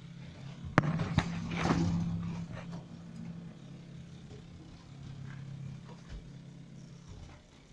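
1999 Mid Western hydraulic passenger lift in motion: a steady low hum. About a second in there are two sharp clicks and a brief rushing noise, and the hum drops away near the end as the car comes to a stop.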